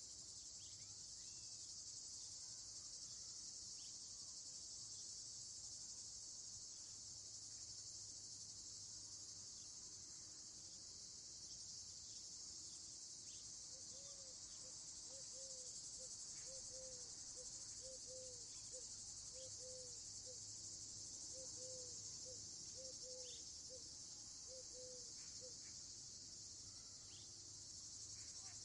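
Faint, steady chorus of crickets and other insects at dusk, an even high-pitched trill with no breaks. About halfway through, a faint animal call repeats as short low notes, roughly two a second, for about twelve seconds.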